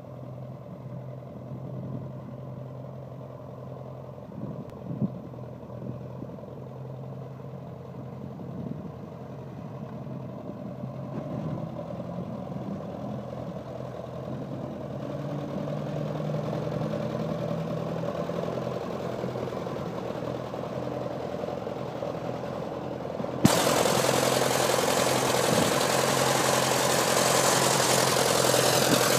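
Ferguson tractor engine, run on TVO (tractor vaporising oil), idling steadily with a low, even hum. About 23 seconds in it turns suddenly much louder and harsher.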